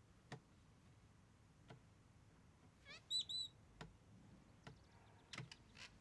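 Quiet room with a few soft, scattered clicks, and about three seconds in a brief high chirp led in by a quick run of rising squeaks; another short run of chirps comes near the end.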